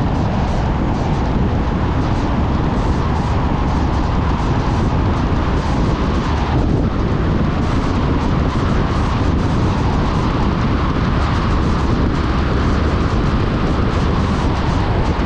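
Car driving: a steady rumble of engine and road noise, heaviest in the low end.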